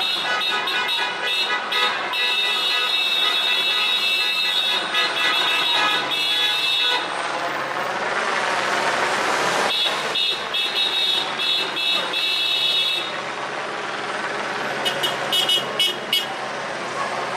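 Car horns honking in long held blasts, several at once, amid stopped street traffic. Midway a broad rushing noise rises over them, then the honking resumes.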